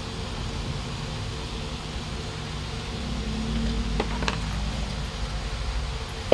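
A coiled braided charging cable and charger block set down on a desk: a pair of light clicks about four seconds in, over a steady background hum.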